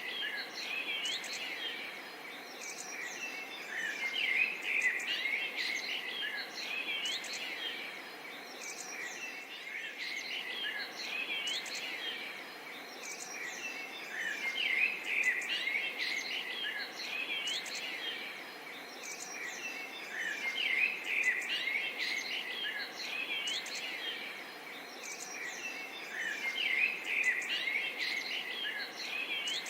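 A dense chorus of many birds chirping and calling over a steady faint hiss, swelling and fading in waves every few seconds.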